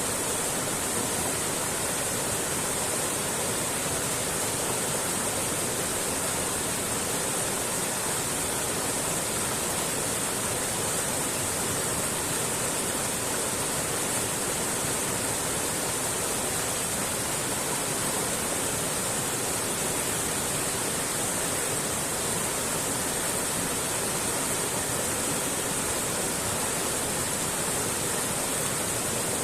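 Mountain stream rushing steadily, an even hiss of flowing water with no breaks.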